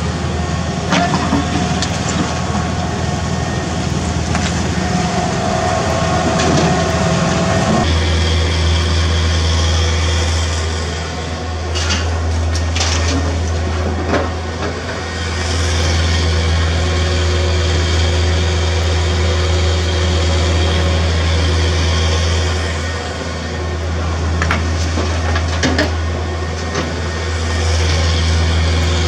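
Diesel engine of a CAT 305E2 mini excavator running steadily as it works, with a few sharp clatters of demolition rubble dropping into a steel dump-truck bed near the middle and again near the end.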